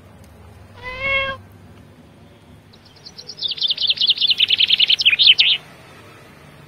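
A cat meows once, briefly, about a second in. Then a songbird sings a fast trill of high chirps that falls slightly in pitch, lasting nearly three seconds.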